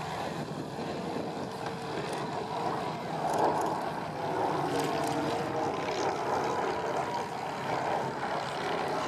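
Lockheed Super Constellation's four Wright R-3350 radial piston engines and propellers making a steady drone as the airliner flies past, swelling a little about three seconds in.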